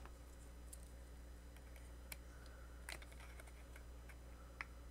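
Near silence over a low steady hum, broken by a handful of faint, sharp little clicks and taps. The clearest come about two, three and four and a half seconds in.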